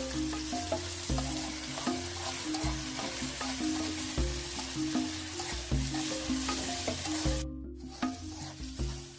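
Snails and shrimp sizzling as they fry in hot oil in a metal wok, stirred now and then with a metal spoon. Low background music with stepping notes runs underneath, and the sound cuts out briefly about seven and a half seconds in.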